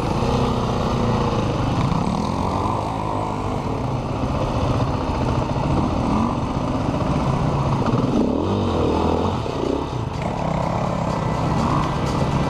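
KTM 450 EXC enduro motorcycle's four-stroke single-cylinder engine, recorded on board, revving up and down over and over, its pitch rising and falling every second or so as the bike works along a slow, muddy trail.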